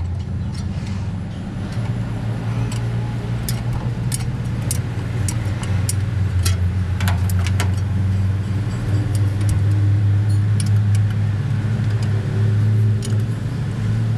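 A motor engine running steadily, a little louder after about two seconds, with scattered light metallic clinks over it.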